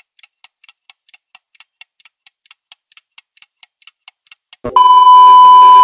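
Added-in ticking sound effect, about four to five even ticks a second. Near the end it gives way to a click and a loud, steady, high beep lasting about a second.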